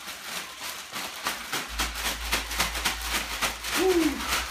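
A gallon zipper bag of ice and salt, with a smaller bag of ice-cream mix inside, shaken hard by hand: ice rattling and plastic crinkling in a quick rhythm of several shakes a second, as the mix is frozen into ice cream. A brief falling vocal sound comes near the end.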